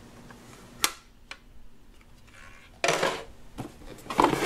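Small plastic toy oven being handled: a sharp plastic click about a second in, then rustling and knocking as a hand reaches into the cardboard box among the plastic pieces near the end.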